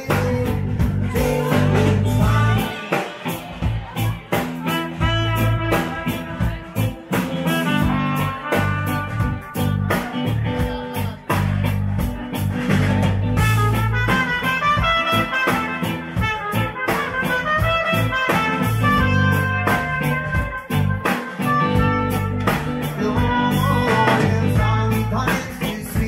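Live band playing a song on electric guitar and drum kit, with a trumpet carrying the melody over them through the middle.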